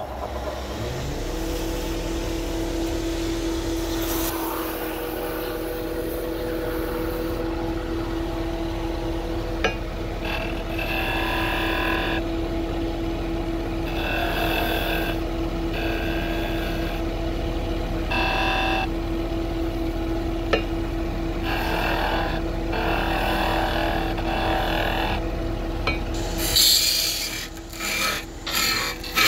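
Wood lathe motor starting up and running with a steady hum, while a turning tool cuts the spinning wood in several separate passes that ring with a squealing tone. Near the end come quick repeated scraping strokes.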